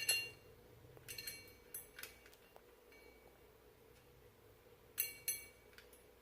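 Small metal parts and hand tools clinking against each other while the hub assembly is put together: short ringing metallic clinks in a few clusters, at the start, around one to two seconds in, and a pair near five seconds.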